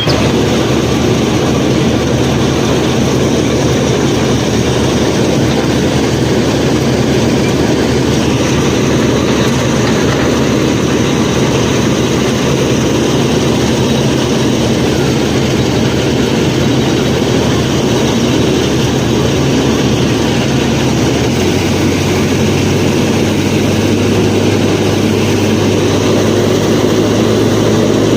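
Steady engine drone of a tractor running, with a low, even hum; the hum shifts to a slightly different pitch about three-quarters of the way through.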